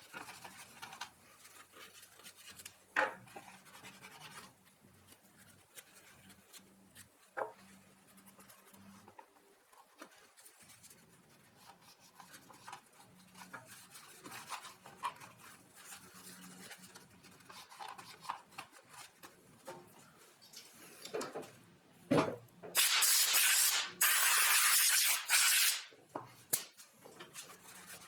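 Light rubbing and scattered small knocks of parts being handled, then, near the end, two loud bursts of hissing spray, the second one longer.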